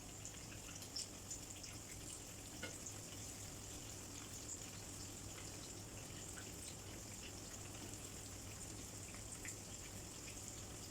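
Butterfly shrimp frying in oil: a steady sizzle with small scattered pops and crackles, over a faint low hum.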